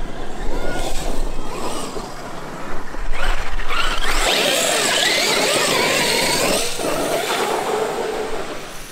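Traxxas X-Maxx brushless electric RC monster truck driving hard, its motor whining up and down in pitch. A loud rushing noise joins in about three seconds in and fades near the end.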